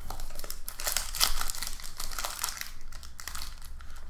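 Foil trading-card pack wrapper crinkling as it is handled and pulled open, in irregular crackles, loudest in the first half.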